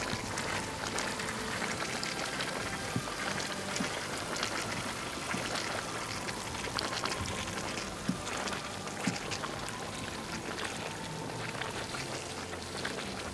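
Steady fizzing and crackling of bubbling hot-spring water, dotted with sharp clicks and a few louder pops.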